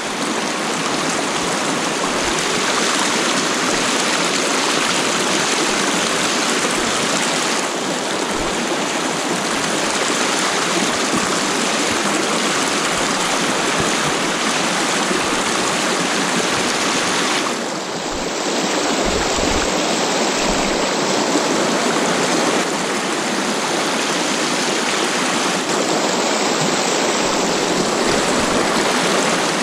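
Shallow mountain trout stream rushing over rocks in a riffle right at the microphone: a steady, loud wash of water.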